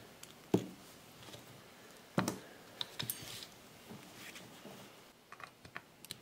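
Hand tools and an opened hard drive handled on a tabletop: scattered light clicks and knocks, the loudest about two seconds in, with a quick run of small clicks near the end.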